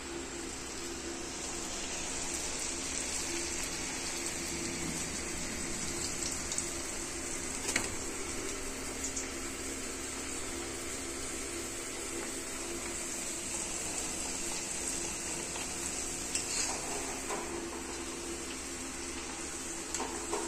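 Puri deep-frying in hot oil in an iron kadhai, a steady sizzle, with a few sharp clinks of metal utensils about eight seconds in, near sixteen seconds and near the end.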